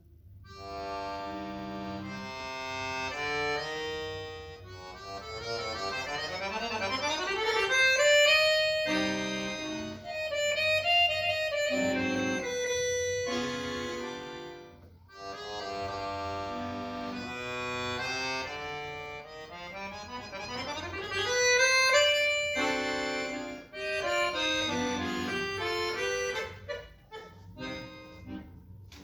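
Solo accordion playing: held chords and single notes, with fast climbing runs that swell to loud peaks twice, about a third of the way in and again around three quarters through.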